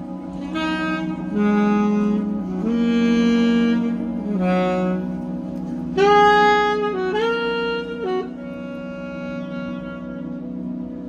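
Background music: a slow melody of long held notes, some sliding into pitch, over a steady sustained chord. The loudest note comes about six seconds in.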